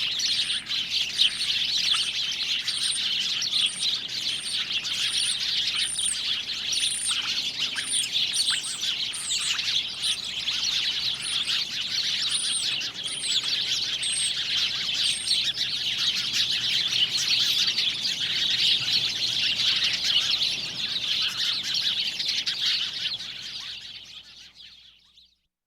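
A dense chorus of many small birds chirping and twittering together, with one bird repeating a short, very high note over and over through the first half. The chorus fades out near the end.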